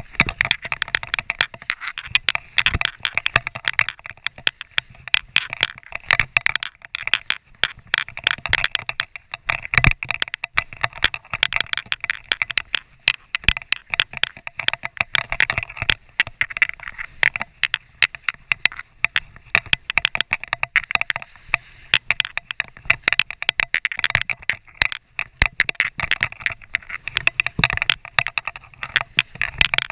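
Skis sliding and scraping over snow, heard close up through a body-worn action camera: a dense, irregular crackle of sharp clicks.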